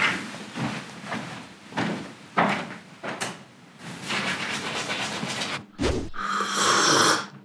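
Toothbrush scrubbing teeth in irregular scratchy strokes, then a brief thump and a loud slurp of coffee sipped from a cup near the end.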